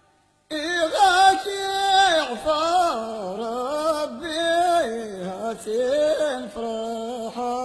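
A solo voice singing a verse of Amazigh ahwach poetry unaccompanied, the melody sliding through ornamented turns. It starts about half a second in and ends on a held low note.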